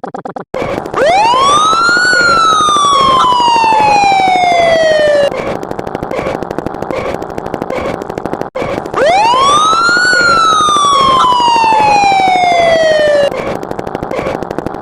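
A siren sound effect, played twice. Each wail rises quickly for about a second, then slides slowly down for about three seconds and cuts off suddenly, over a fast, steady pulsing underneath.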